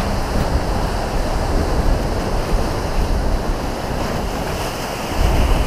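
Sea waves washing over shore rocks, with wind rumbling on the microphone; the surf swells louder near the end.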